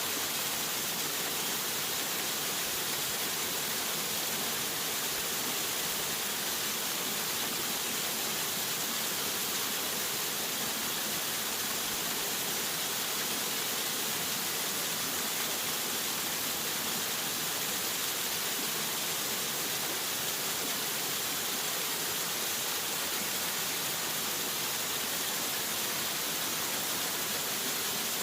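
Waterfall: a steady, unbroken rush of falling water with a bright, hissing tone.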